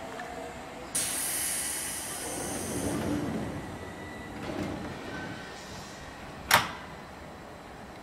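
A Seibu 2000-series train's air-operated doors closing. A sudden hiss of air comes about a second in, with rumbling as the doors slide, then one sharp loud clunk a little after the middle as a door shuts.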